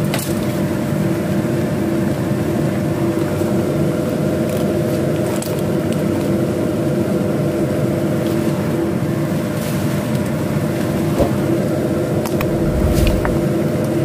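Steady mechanical hum with a constant drone, a few faint clicks, and a brief low bump near the end.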